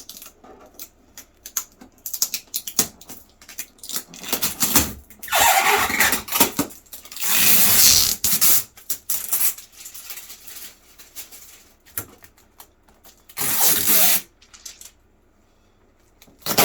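Packing materials being stripped off a new 3D printer: packing tape peeled and plastic wrap and padding handled, with irregular clicks and knocks and three longer rasping stretches, the longest two around the middle.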